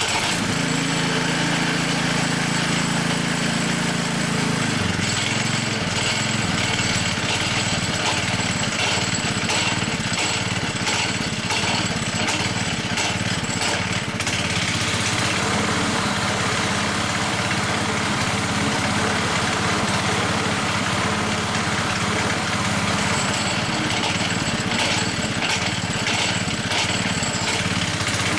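Hayter 479 rotary lawn mower engine starting at once and running steadily, with a knocking that comes and goes over it: the worn blade brake disc slapping backwards and forwards, a noise that stops when the blade brake is engaged.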